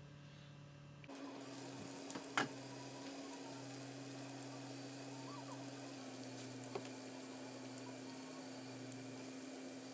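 Potato slices sizzling gently in a frying pan, quieter for the first second and then steady, over a low constant hum. A single sharp tap about two and a half seconds in.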